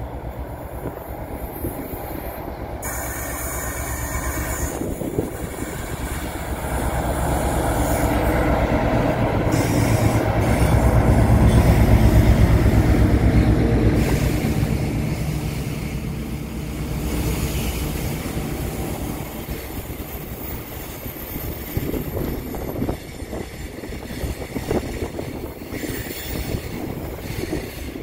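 A Class 60 diesel locomotive hauling loaded box wagons slowly round a curve: the engine grows louder as it approaches and is loudest as it passes about ten to fourteen seconds in, then the wagons roll by with wheel squeal from the curve.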